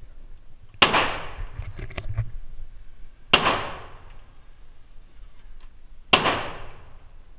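Three single shots from an AR-15 semi-automatic rifle, fired about two and a half to three seconds apart, each ringing off the walls of an indoor range.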